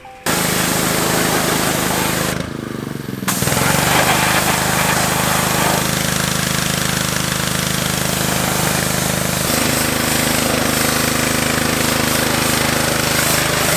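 A small gas engine running steadily at high speed with a loud rushing noise over it. It starts abruptly, eases off for about a second some two and a half seconds in, then picks back up.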